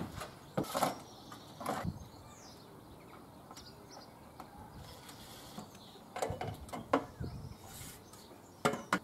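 A few separate knocks and clatters of work on a conservatory edge, including a metal stepladder being set down and climbed, with a quieter stretch in the middle.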